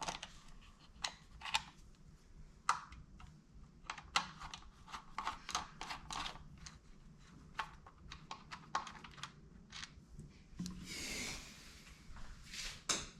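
Light, scattered clicks and taps of a chainsaw's parts and hand tools being handled during disassembly, with a longer rustling noise about eleven seconds in.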